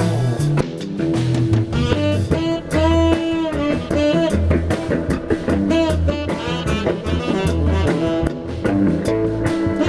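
Instrumental band music with a steady beat: drum kit, guitar and horns playing sustained notes.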